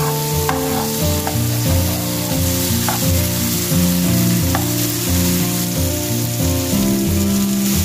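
Tomatoes, onion and garlic sizzling as they fry in butter in a pan, stirred with a metal spoon that clicks against the pan a few times. Background music with held low notes runs underneath.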